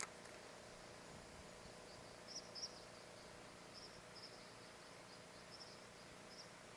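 Near silence with a short click at the very start, then faint, high, short chirps at irregular intervals, the loudest pair a little over two seconds in, typical of a small bird or insect calling near the water.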